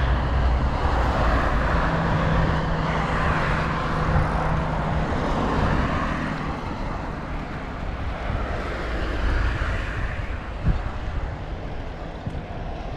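Steady rush of road traffic passing on the adjacent road, heard from a moving bicycle, with an engine hum in the first few seconds that fades out. The noise eases off through the second half, and there is one short click near the end.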